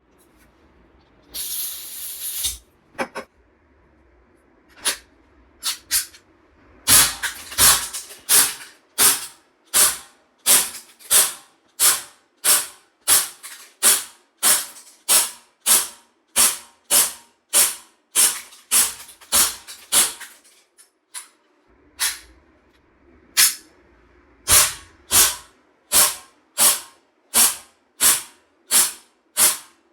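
ASG CZ P-10 C gas blowback airsoft pistol on green gas: a hiss of gas about a second long near the start, a few clicks, then a steady string of shots, roughly two a second. Each shot has the sharp crack and slide clack of the blowback action. The string pauses briefly about two-thirds of the way through, then carries on.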